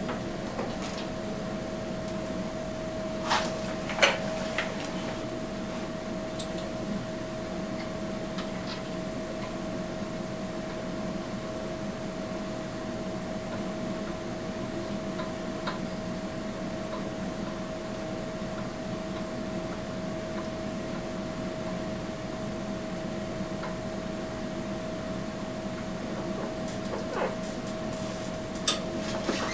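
Steady machine hum holding one constant tone, with a couple of sharp clicks a few seconds in and more near the end.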